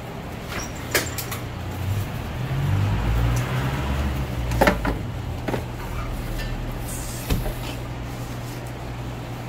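Clicks and knocks from rummaging through frozen treats in an ice cream chest freezer, over a steady low hum. A low rumble swells and fades in the middle.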